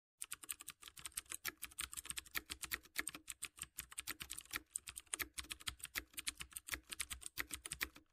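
Rapid typing on a keyboard: a steady stream of quick key clicks, the typing sound effect that goes with text being typed out on screen.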